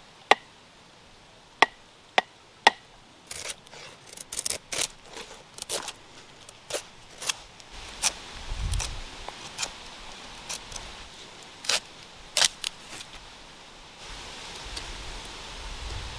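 Sharp clicks and snips from cutting and shaping pieces of a plastic bottle by hand, a few with a short pitched ring. Sparse at first, then coming thick and fast.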